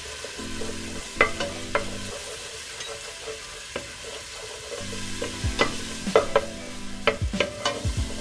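Wooden spoon stirring garlic paste frying in oil in a large stainless-steel pot, with a light sizzle and scattered knocks of the spoon against the pot, more of them in the second half.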